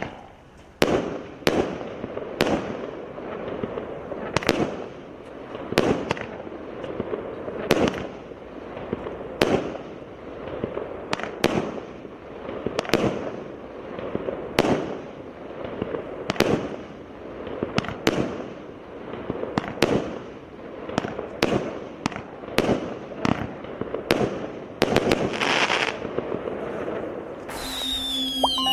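Multi-shot consumer firework battery (cake) firing shot after shot, a sharp bang about once a second and coming faster in the second half, with crackling between the bangs. A short sliding jingle starts near the end.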